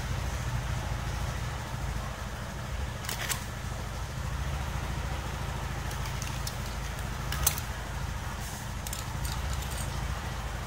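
A few light metallic clicks and clinks as a motorcycle cam sprocket and its bolts are handled at the open cylinder head, the sharpest one a little past the middle, over a steady low background rumble.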